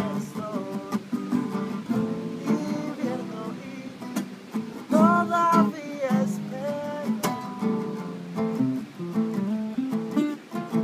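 A reggae-jazz band playing, with strummed acoustic guitar chords under a melody line that bends up and down about five seconds in.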